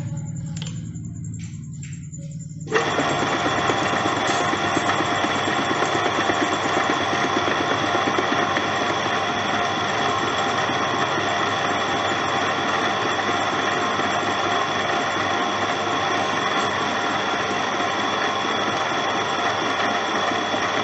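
Electric domestic water pump (donkey pump) with a few clicks, then a sudden step about three seconds in to loud, steady running with a high whine, its bearings freshly topped up with oil.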